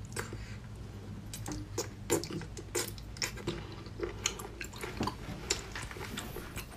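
Close-up mouth sounds of a person chewing and biting rubbery raw octopus: irregular wet clicks and smacks, one or two a second, over a steady low hum.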